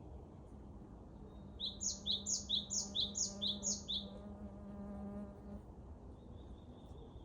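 A songbird sings one rapid phrase of about ten short, high, downward-sweeping notes that alternate between a higher and a lower pitch, starting about one and a half seconds in. Under it a steady low buzz comes in and fades out about two-thirds of the way through. A faint thin high note sounds near the end.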